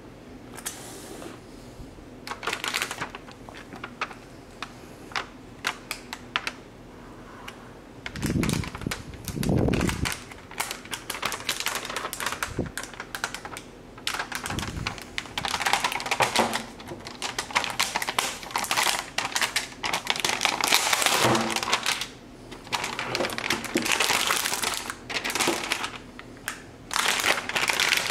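Clear protective plastic film on a graphics card crinkling and crackling as the card is handled and unwrapped, with many small clicks and rustles that grow busier in the second half. A couple of dull low thumps come about eight to ten seconds in.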